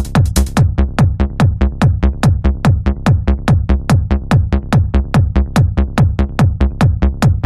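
Hard trance music with a fast, driving kick drum, about two and a half beats a second, each kick dropping in pitch. A bright hi-hat layer drops out about half a second in, leaving the kick and a sharp high click on each beat.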